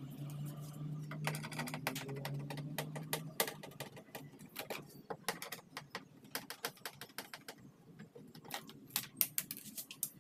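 Irregular clicks and taps of tools and plastic parts as a car door's inner trim panel is taken apart, with a low hum during the first three seconds.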